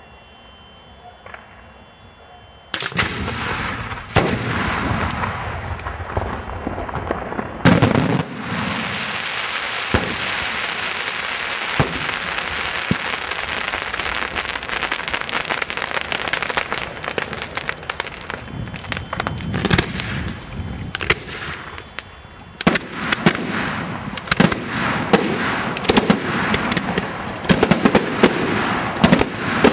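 Aerial fireworks display: after a quieter first couple of seconds, shells go off with loud bangs, one especially loud bang about eight seconds in, followed by a long stretch of dense crackling. In the last third the shots come fast, a rapid salvo of sharp reports and crackle.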